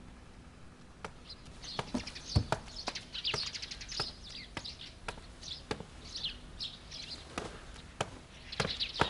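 Small birds chirping in short high calls, with scattered sharp taps at irregular intervals.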